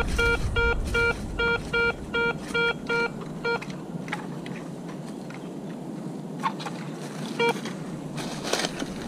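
Garrett ACE 250 metal detector beeping repeatedly, about two to three short electronic beeps a second, as the coil passes back and forth over a buried target that it reads as silver. The beeps stop about three and a half seconds in, with one more beep later and soft rustling and scraping around it.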